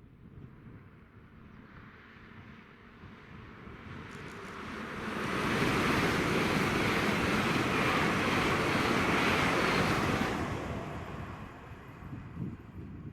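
A train passing at speed on the main line: a rushing noise of wheels and air swells, holds loudest for about five seconds, then dies away. There is no horn.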